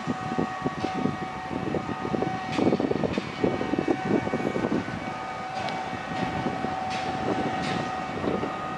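Heavy construction machinery running: a steady high whine over an uneven rumble, with a few sharp ticks scattered through.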